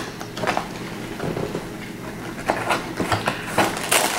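Cardboard Lego set box being opened and handled: irregular scrapes, taps and rustles, busier near the end as a hand reaches inside the box.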